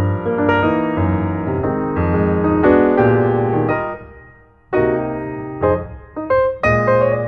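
Background music led by electric piano chords over a bass line, fading briefly about four seconds in and then coming back in.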